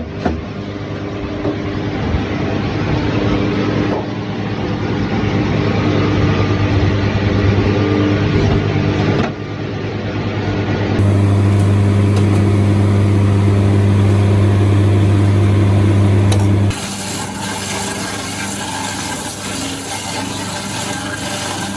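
Sawmill machinery running steadily: a loud engine-driven hum with a low drone and steady overtones. The sound changes abruptly three times, getting louder and fuller about 11 s in and dropping back about 17 s in.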